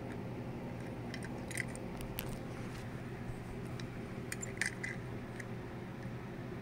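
A few light clicks and clinks of a small die-cast metal toy car being picked up and handled, a couple about two seconds in and a cluster about four and a half seconds in, over a steady low hum.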